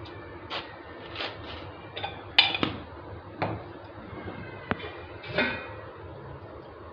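Steel kitchen utensils and vessels clinking and knocking about seven times at irregular intervals, the loudest about two and a half seconds in, over a steady low background noise.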